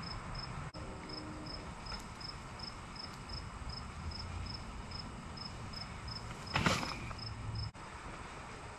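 A cricket chirping steadily, about three even chirps a second. A brief loud scrape cuts in about two-thirds of the way through.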